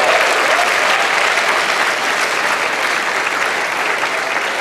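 Audience applauding in a large hall, with a few whoops near the start; the clapping eases off slightly towards the end.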